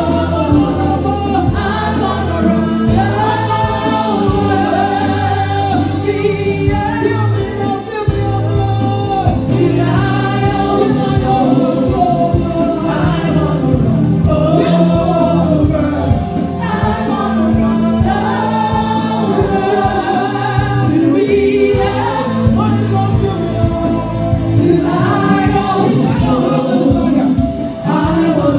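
Live gospel worship song: a choir singing over a steady beat and bass line, with a woman leading on an amplified microphone.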